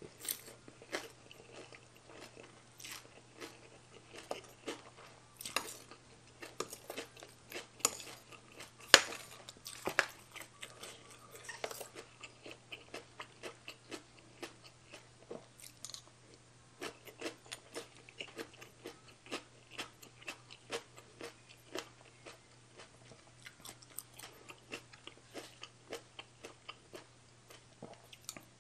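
Close-miked chewing and crunching of mouthfuls of spicy baby cuttlefish salad with fresh leaves: irregular wet crunches, the loudest about nine seconds in, over a faint steady low hum.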